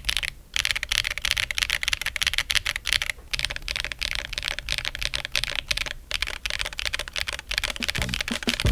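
Fast typing on a Monsgeek M1W v3 mechanical keyboard with tactile switches, a PC plate, no foam and OEM keycaps: a dense, continuous run of keystroke clacks, broken by short pauses about half a second in and about three seconds in.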